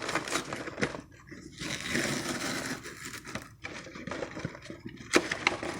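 Rustling and crinkling of a frozen TV dinner's plastic and cardboard packaging being handled, with scattered light clicks and knocks.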